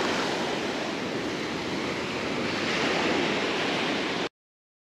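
Steady wash of surf breaking on the beach. It cuts off abruptly to dead silence about four seconds in.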